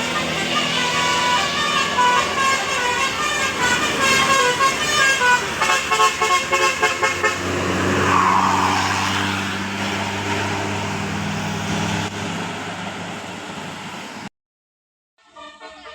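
Bus telolet musical air horn (Basuri type) playing a quick tune of short, multi-note blasts. The bus's diesel engine then runs and fades away, and the sound cuts off abruptly about 14 seconds in.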